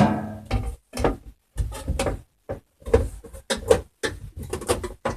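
Burglar alarm control panel cover being fitted back on: a quick series of knocks and clatters, the loudest at the very start with a short ring. Among them is a ting from the panel's tamper switch being pressed down as the cover closes on it.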